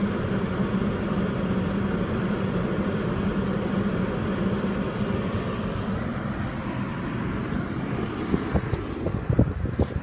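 Steady hum of an Acura RDX running, heard from inside the cabin. A few knocks and clicks come near the end as the door is opened.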